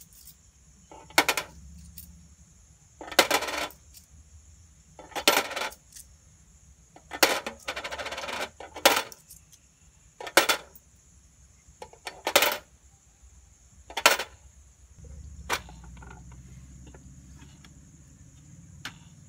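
Coins dropped one at a time through the slot of a money box, about nine over some fifteen seconds, each landing with a sharp clink and some rattling briefly inside.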